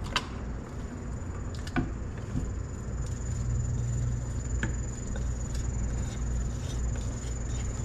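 Chunks of raw swordfish being dropped by hand into a stainless steel pot of soup, with a few scattered soft plops and clicks against the pot and the glass bowl. Underneath runs a steady low hum with a thin high whine.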